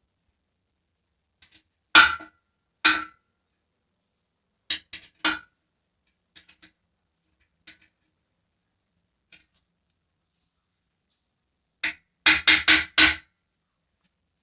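A series of sharp knocks with the same ringing pitch each time, spaced irregularly, ending in a quick run of four about twelve seconds in.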